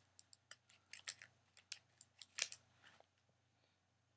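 Plastic vacuum-sealed meat-stick packaging being worked open by hand: faint, irregular crinkles and clicks for about three seconds, then stopping.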